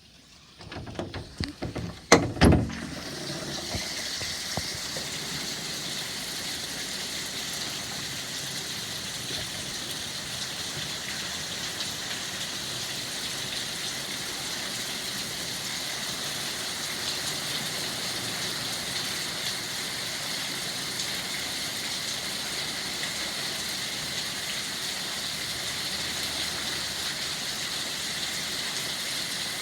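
A few knocks and clatters, the loudest about two seconds in, then steady rain falling with an even hiss.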